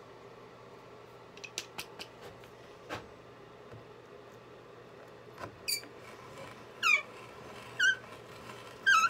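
Hand brace turning a 5/8-inch Forstner bit into a poplar board. A few light clicks come first; then, from about halfway through, the brace gives a short squeak roughly once a second, with each turn of the crank.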